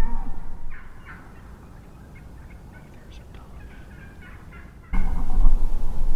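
Eastern wild turkeys in a flock calling, a scatter of short clucks and yelps. About five seconds in, a sudden loud rush of low noise covers them.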